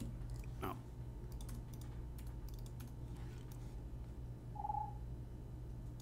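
Scattered computer mouse and keyboard clicks over a steady low electrical hum, with one short beep about three-quarters of the way through.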